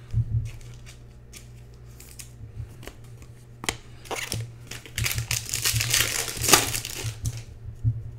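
Plastic wrapper of a trading-card pack crinkling as it is handled and torn open, a few scattered rustles at first, then a dense crinkle through the second half that stops about a second before the end.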